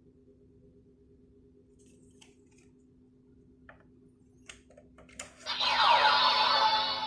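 Faint plastic clicks of the DX Gotchardriver toy belt being handled, then about five seconds in the belt's speaker starts a loud electronic sound effect with falling pitch sweeps, over a steady low hum.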